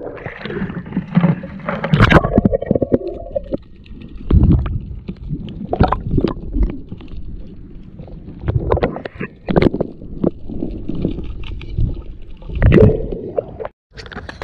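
Water sloshing and gurgling around a camera that dips between the surface and underwater, with irregular knocks and low thumps as water and hands bump its housing.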